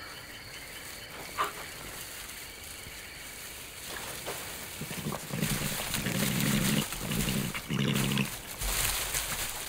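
European badger growling in low grunts, in three runs starting about halfway through, the first the longest.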